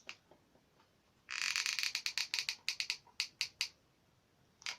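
Rapid dry clicking for about half a second, then a run of separate clicks that thin out over the next two seconds, from hand work on a cardboard model.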